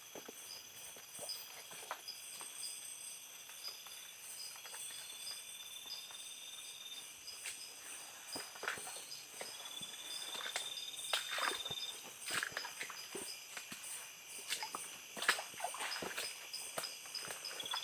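Steady chorus of forest insects, with a higher buzzing trill that comes in three times for about two seconds each, over scattered light crackles and snaps of leaf litter and twigs underfoot.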